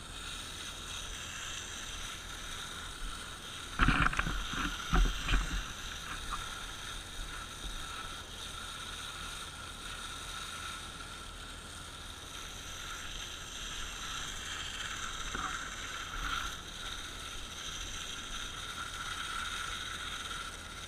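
Fire hose nozzle spraying a steady stream of water onto smouldering ground, a continuous hiss. A cluster of loud thumps comes about four to six seconds in, and a smaller one near the end.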